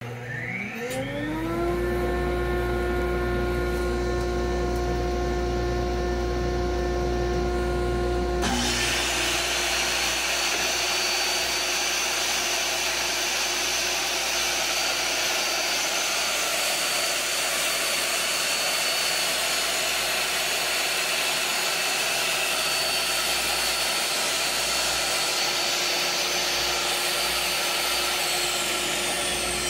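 DeWalt DW745 table saw motor spinning up with a rising whine, then running steadily. About eight seconds in, a louder, rougher noise joins as the blade rips the edge off a 3/4-inch MDF board, and it carries on while the board is fed through.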